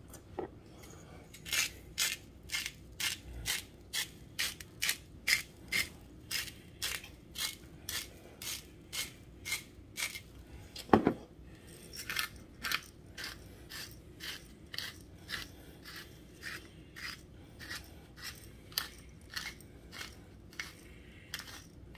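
Hand-twisted salt and pepper grinders cranking over meat: a steady gritty crunching, about two twists a second, with a short break and one louder knock about halfway through.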